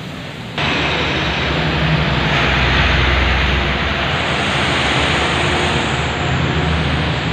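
Loud, steady rushing noise over a low engine-like rumble from a motor vehicle running, jumping up sharply about half a second in and then holding.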